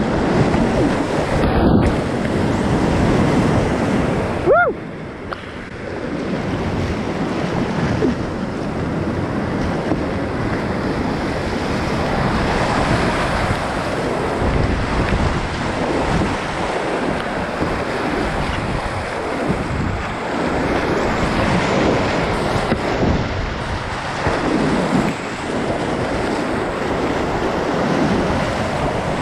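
Whitewater of a small upland river in spate rushing and churning around a kayak running its rapids, with wind buffeting the microphone. The rush dips briefly about five seconds in.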